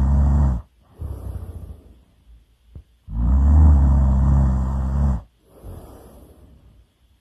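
A person snoring loudly in slow cycles: a long, low, rattling snore on the breath in, then a softer, airy breath out. One snore ends just under a second in, and a second runs from about 3 to 5 seconds in.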